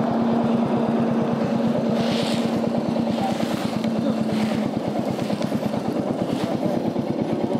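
Royal Enfield Meteor 350's single-cylinder engine running at low revs with a steady, even beat.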